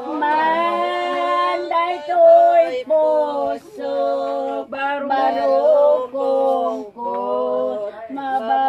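Unaccompanied singing voice, a string of held notes with short breaks between them.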